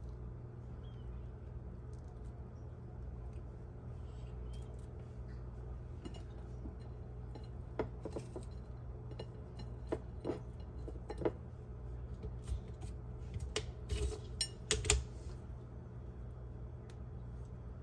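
Scattered clicks and clinks of kitchen utensils and dishes being handled, heaviest in the middle and second half, with the loudest near the end, over a steady low hum.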